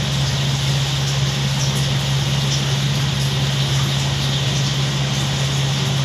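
Steady electric motor hum with a constant hiss, running evenly and unchanged throughout.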